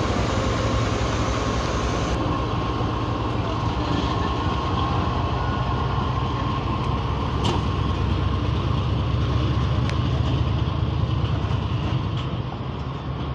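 GEU-40 diesel-electric locomotive hauling a departing passenger train, its diesel engine running with a steady low rumble and hum, with a few faint clicks.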